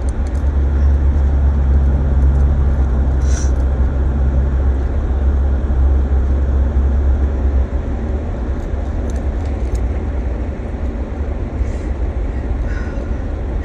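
Car driving, heard from inside the cabin: a steady low rumble of road and engine noise. A low hum in it drops away about four and a half seconds in, and the rumble eases slightly near eight seconds.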